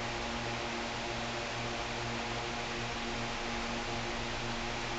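Steady electrical hum over a constant hiss: workshop room tone, with no distinct tool or engine sounds.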